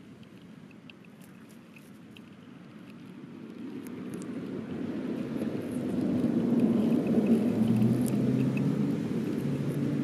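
A low engine rumble that swells in from about four seconds in and becomes the loudest sound, carrying a steady low hum, with faint small clicks above it.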